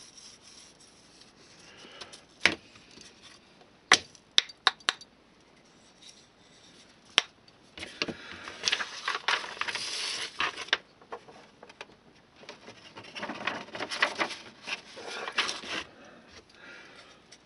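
Small hard clicks and taps of workbench items being picked up and set down in the first several seconds, then two stretches of scratchy rustling as a stiff brush works rust weathering powder and the sheet of paper under it is handled.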